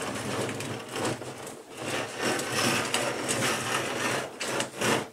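A large residential refrigerator being dragged across the RV floor on a rug, a continuous rough scraping and rumbling that breaks into a few short separate scrapes near the end.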